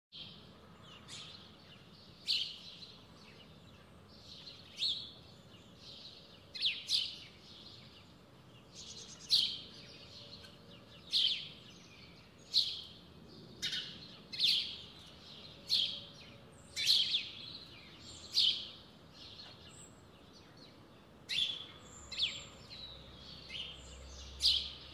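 Eurasian blackbirds calling: short, sharp single notes repeated irregularly, roughly once a second.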